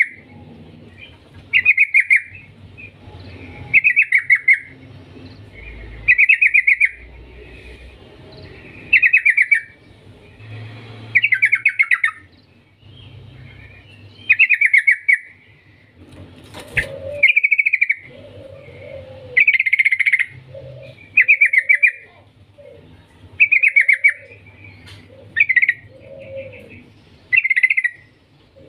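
Yellow-vented bulbul (trucukan) singing: short, bubbly warbled phrases repeated over and over, one every two seconds or so, with fainter, lower notes between them in the second half.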